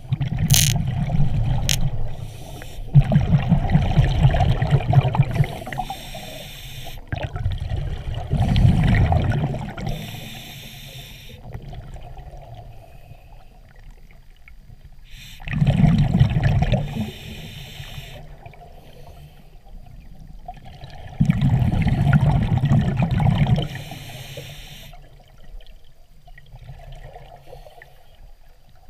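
Scuba regulator breathing heard underwater: five long, rushing bursts of exhaled bubbles a few seconds apart, with quieter stretches between breaths.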